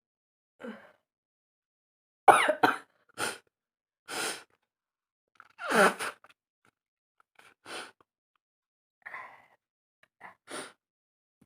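A woman sneezing, two loud sneezes about two and six seconds in, with sniffs and sharp breaths between. The sneezes are set off by tickling her nose with a rolled paper twist during a heavy head cold.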